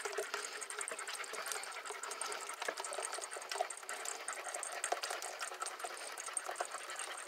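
A spoon stirring and scraping in a saucepan of cream sauce while a cold milk, cream and flour mixture is poured in, with many light irregular ticks.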